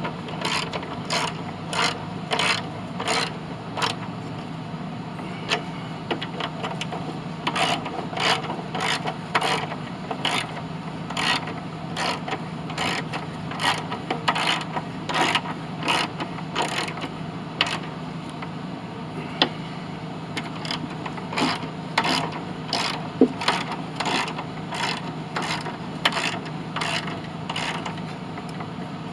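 Socket ratchet wrench clicking in repeated short bursts of strokes as bolts are tightened down.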